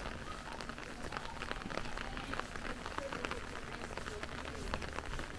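Rain falling, with many close drops ticking sharply and irregularly on hard surfaces over a steady hiss of rain.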